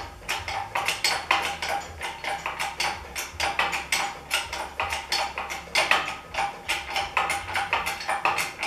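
Rapid, uneven metallic clicking, several clicks a second, from hand work with tools at a pickup's door hinge bolts.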